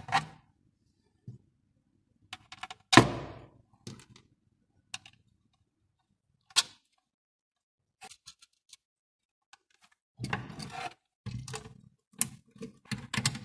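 Small metal screws, washers and nuts clicking and clattering against a plastic dispenser housing as they are fitted, with one sharper knock about three seconds in. Near the end, a denser run of rattling and scraping as a screwdriver tightens the screws holding the small DC motor.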